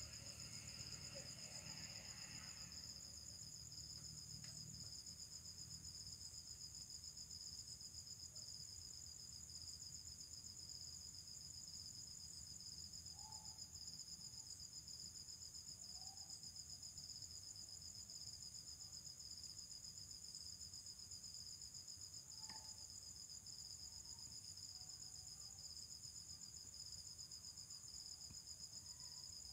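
Crickets chirping in a faint, steady night-time chorus, with a few brief faint calls from another animal near the middle.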